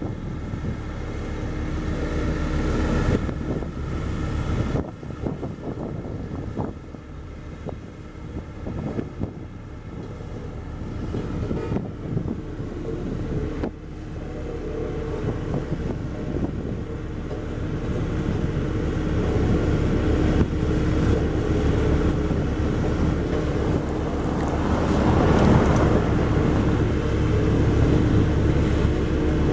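Diesel engine of a Bomag BW 211D road roller running steadily, louder in the second half, with wind buffeting the microphone.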